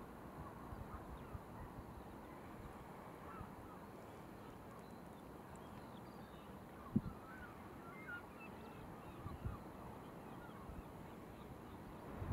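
Faint background ambience with a few short, faint animal calls about halfway through and a single low thump about seven seconds in.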